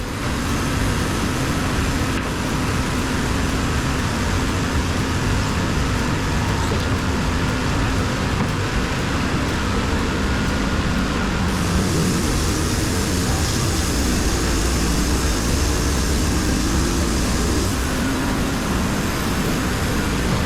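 WoodMizer LT35 band sawmill running steadily, its blade cutting through an oak log, with a brighter hiss that comes in about halfway through and drops back near the end.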